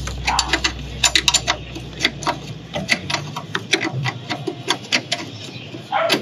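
Hand tools clicking and knocking against metal in a run of irregular sharp clicks while a suspension bolt is worked loose, with a low hum underneath that fades out about three seconds in.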